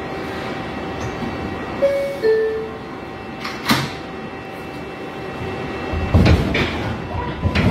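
New York City Subway R142A car's door chime, two tones stepping down, then the doors slide shut with a sharp clunk. A few seconds later the train starts off with rumbling and clunks, and a steady electric motor whine sets in near the end.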